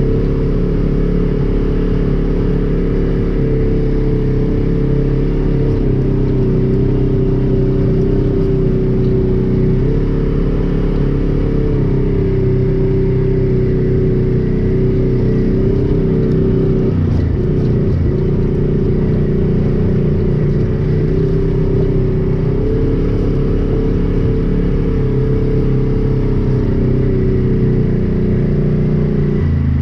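Side-by-side UTV engine running steadily, heard from inside the open cab while the machine crawls along a trail. The engine note shifts slightly with throttle a few times, most noticeably a little past halfway.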